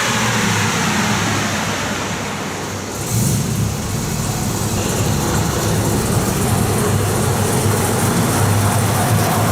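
Cammed Chevy 5.3L V8 truck on a chassis dyno, winding down in pitch at the start, then about three seconds in it picks up suddenly into a steady, louder low running.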